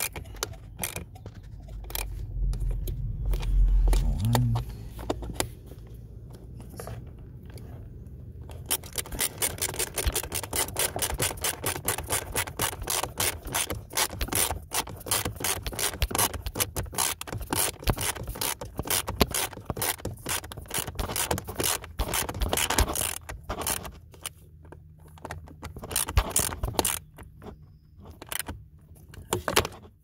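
Small socket ratchet with an extension clicking as it drives in the blend door actuator's mounting screws, in a long rapid run of clicks through the middle, sparser near the end. Knocks and rubbing from handling the tool come first.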